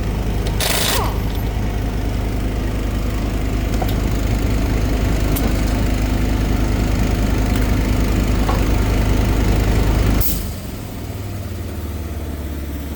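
An engine running steadily with a fast low throb, with a short burst of hissing noise about a second in. About ten seconds in, another short burst of hiss, and the engine drops to a quieter, lower-pitched running.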